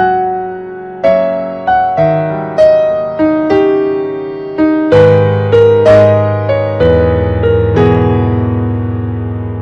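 Background music: slow piano or electric piano, single notes and chords struck and left to decay, about one or two a second.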